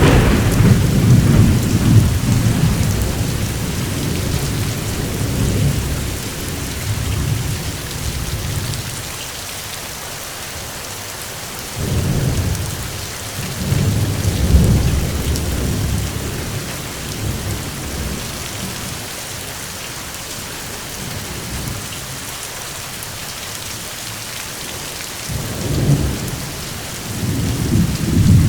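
Steady heavy rain hissing, with rolling thunder that swells and fades several times: a long rumble in the first few seconds, another in the middle, and a third building near the end.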